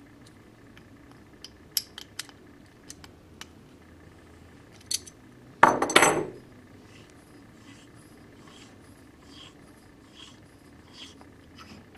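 A Super Air Amplifier being taken apart with a hook spanner wrench: scattered light metallic clicks and taps, and a louder ringing metal clatter a little past halfway. After it comes a run of soft, repeated scraping as the threaded parts are turned by hand.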